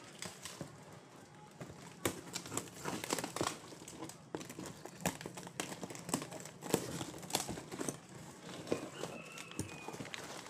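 Scissors cutting through packing tape on a cardboard box, with the cardboard flaps and tape being torn and pulled open, as a run of irregular crackles, crinkles and rustles.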